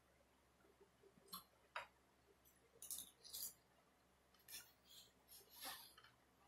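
Faint eating sounds close to the microphone: a scattered series of short, crisp clicks and wet smacks from chewing, with light taps of utensils.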